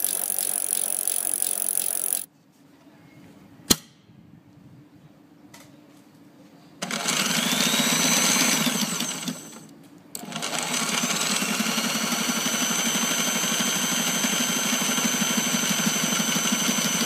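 Sailrite sewing machine with a jumper foot stitching fabric, a rapid, even run of needle strokes. It is quiet for several seconds with a single click, starts again about seven seconds in, stops briefly near ten seconds, then runs steadily.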